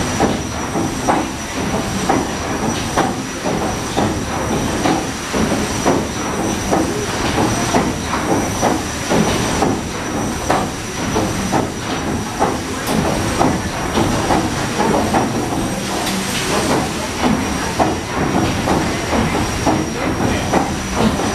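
PS Waverley's three-cylinder triple-expansion steam engine and paddle machinery running under way: a steady hiss with a regular rhythmic beat of knocks, and a thin high whine running over it.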